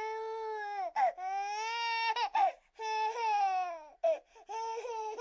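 Infant crying in long wails of about a second each, the pitch dropping at the end of each one, broken by short sharp cries and catches of breath.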